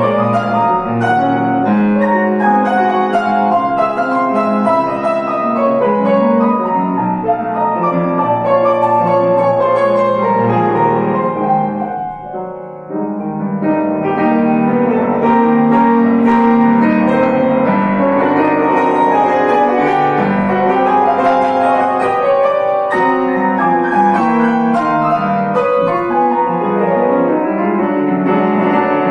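Solo grand piano playing a fast classical étude in dense runs of rapid notes; the playing drops briefly to a softer, thinner passage about twelve seconds in, then returns at full strength.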